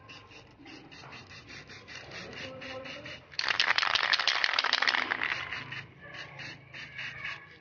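Aerosol spray paint can being shaken and sprayed: steady quick clicks, about five a second, with a much louder dense rush starting about three and a half seconds in and lasting some two seconds.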